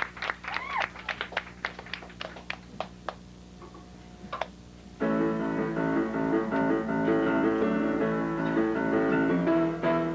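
Audience applause thinning out to a few scattered claps. About five seconds in, a piano starts the introduction to the next song.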